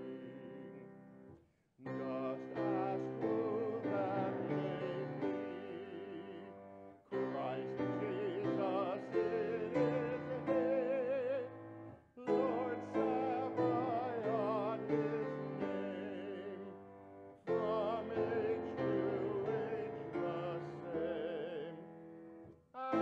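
Solo male voice singing a sacred introit with vibrato, accompanied by piano. The phrases are separated by short breaths about every five seconds.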